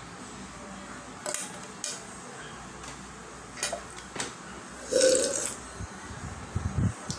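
A plastic cup handled close to the microphone: a few sharp clicks and taps, a louder half-second noise about five seconds in, then a run of soft low bumps near the end.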